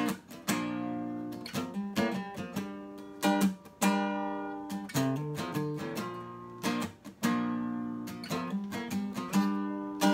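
Acoustic guitar strummed, each sharp stroke followed by a ringing chord in a steady rhythm.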